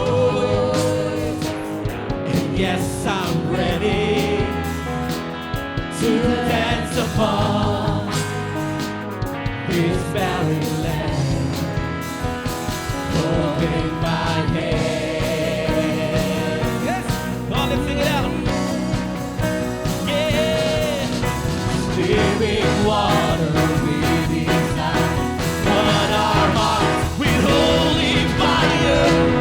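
Live church worship band playing a praise song, with voices singing over drums and guitars in a steady beat.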